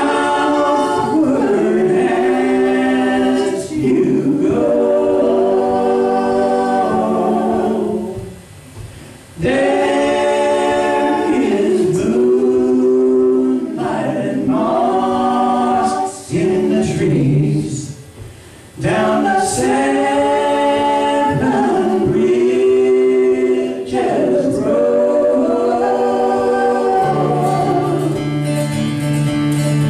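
A woman's and a man's voices singing a song together in harmony, a cappella, in long phrases with two short breaks between them. A low held note comes in near the end.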